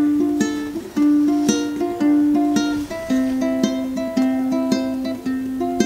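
Ukulele fingerpicked in a steady pattern of single plucked notes, thumb on the C string and fingers on the E and A strings, moving over D minor and C chords.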